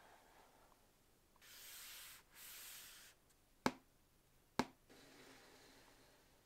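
Hands handling unboxing packaging: two short rubbing or sliding sounds, then two sharp clicks about a second apart, then fainter rubbing.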